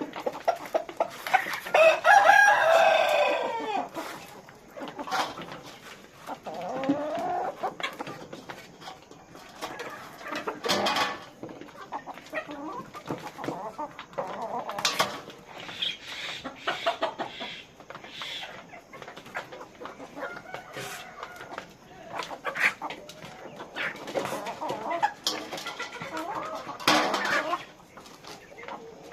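Poultry flock clucking, with a rooster crowing several times; the loudest crow comes about two seconds in.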